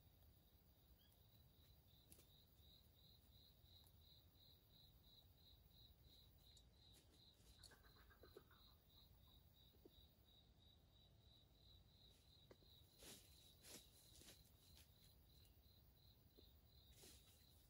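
Near silence, with a faint insect chirping steadily in a high, even pulse of about three a second. A few soft clicks come about two-thirds of the way in and again near the end.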